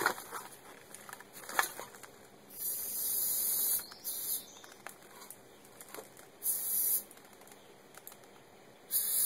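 Aerosol can of carburetor cleaner sprayed in four hissing bursts, the first and longest a little over a second, the others short. A few clicks and knocks of handling come near the start.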